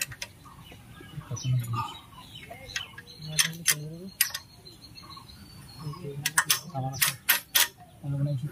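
Hand tools clicking and knocking on metal engine parts during a diesel engine repair, with a quick run of sharp knocks in the second half. Low voices talk in between and a bird chirps.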